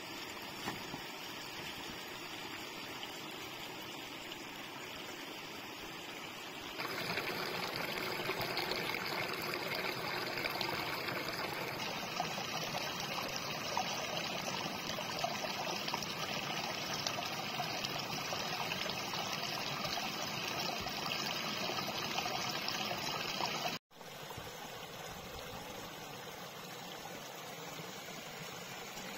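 Water trickling and running steadily. It gets louder about seven seconds in, cuts out abruptly about four-fifths of the way through, and comes back quieter.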